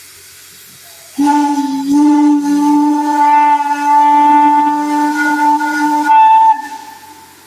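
Steam whistle blown in one long blast of about five seconds, starting about a second in and cutting off near the end, over a low steady hiss of steam.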